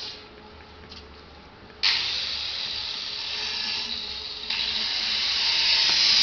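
A power tool starts abruptly about two seconds in with a steady, high hissing whine, and grows louder a few seconds later.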